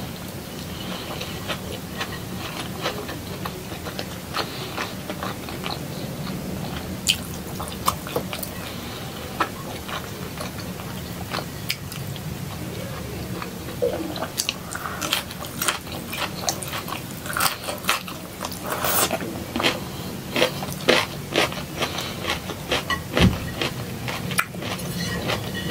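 Close-miked chewing and biting of a person eating chicken and broccoli by hand, with many short wet mouth clicks and smacks. The clicks get busier and louder about halfway through.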